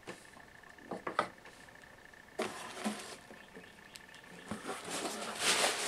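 A few clicks of handling about a second in, then pink plastic bubble-wrap packaging crinkling and rustling from about two and a half seconds in as a replacement faceting-machine speed control is unwrapped. The rustling is loudest near the end. A faint steady high tone runs under the first part.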